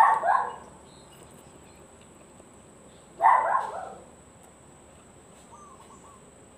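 A dog barking twice, about three seconds apart.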